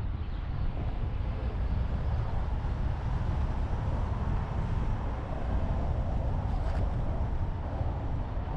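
Road and traffic noise of a moving car, picked up by a camera mounted on the outside of the car: a steady low rumble with an even hiss above it.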